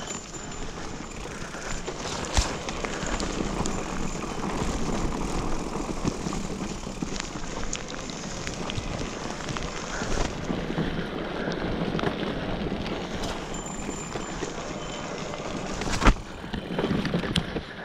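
Mountain bike riding over a wet dirt trail: a steady rush of tyre and rain noise with small rattles throughout, and two sharp knocks, one about two seconds in and a louder one near the end.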